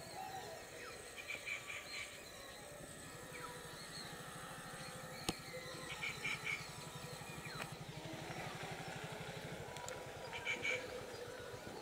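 Trackside ambience: a bird calls three times in short bursts of rapid high chirps over a low, steady throb, with one sharp click about five seconds in. The approaching train is not yet distinctly heard.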